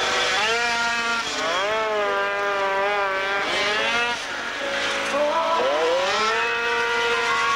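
50cc two-stroke racing mopeds revving hard, engine pitch repeatedly climbing and falling as they brake into and power out of tight corners, with more than one engine heard at once at times.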